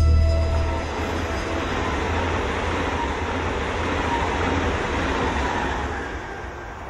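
Electric passenger train passing at speed: a steady rushing rumble of wheels on rails that fades away over the last couple of seconds.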